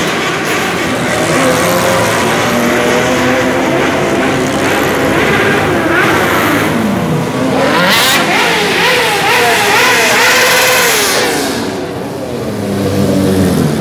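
Motorcycles and scooters riding past one after another, their engine notes rising and falling in pitch as each accelerates by.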